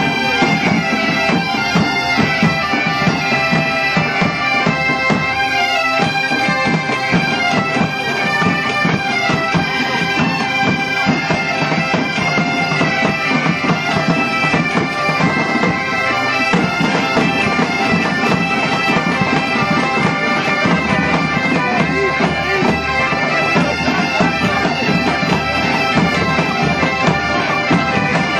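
A large ensemble of Galician bagpipes (gaitas) playing a tune in unison over their steady drones, with drums beating along.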